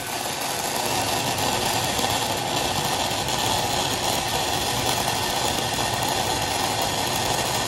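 Stick-welding arc from a 6010 Plus electrode burning steadily while tacking the root of a pipe joint: an even, unbroken hiss.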